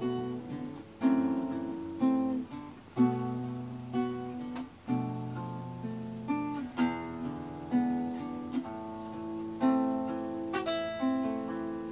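Instrumental background music of plucked strings: notes and chords struck about once a second, each ringing out and fading.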